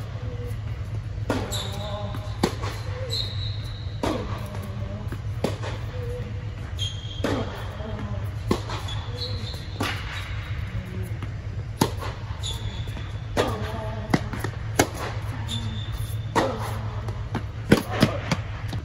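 A tennis rally on an indoor hard court: sharp racket-on-ball hits and ball bounces about every second or so, with short sneaker squeaks between shots. A steady low hum runs underneath.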